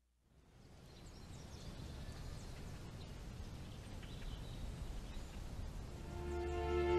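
Outdoor nature ambience fading in from silence: a steady background hiss with faint bird chirps. Music with long held notes begins near the end.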